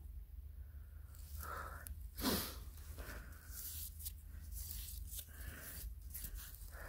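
Faint scraping and rubbing of gloved hands clearing soil off a buried glass bottle, with a short louder rustle about two seconds in.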